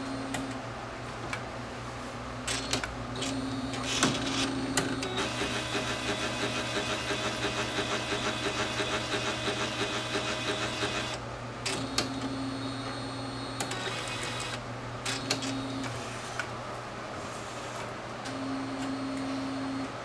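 AnaJet direct-to-garment printer mechanism running: a steady low hum with short spells of motor whine and scattered clicks, and a rapid rhythmic mechanical pulsing with a held tone from about five to eleven seconds in.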